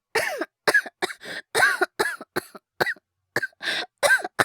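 Acted coughing fit by a voice actor playing a boy sick with a cold: about a dozen short, hacking coughs in quick succession, several of them voiced and hoarse.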